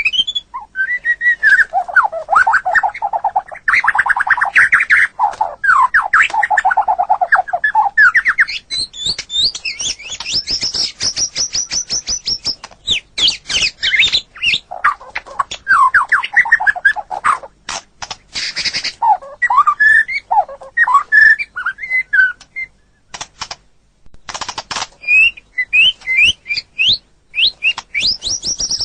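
White-rumped shama (murai batu) singing a long, varied song of fast trills, chattering runs and whistled phrases, with sharp clicking notes and a short pause a little past the middle.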